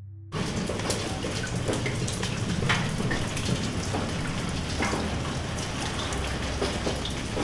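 Water from a kitchen tap running and splashing over hands being washed in a stainless steel sink. It starts abruptly a moment in and goes on steadily, with small splashes throughout.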